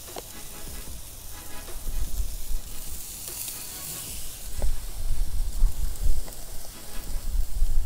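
Thin, spicy marinated chicken breast slices sizzling on a charcoal grill directly over the embers, with wind rumbling on the microphone.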